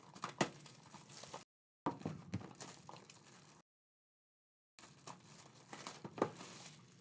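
Trading-card packs and wrapping being handled: crinkling with sharp clicks, in three short spells broken by silence.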